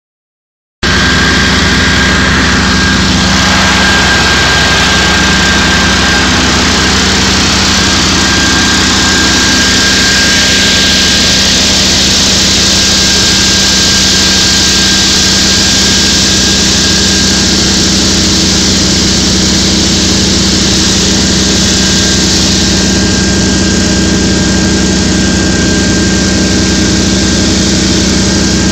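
A motor or engine running steadily: a constant drone with a faint, steady high whine above it.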